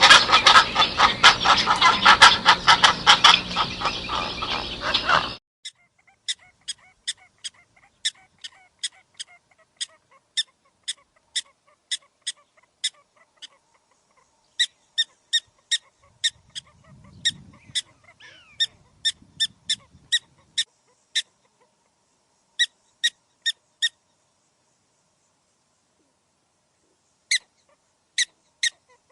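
Bird calls: a loud, harsh honking for about the first five seconds, then a long series of short, sharp high calls at about two a second, broken by a few pauses.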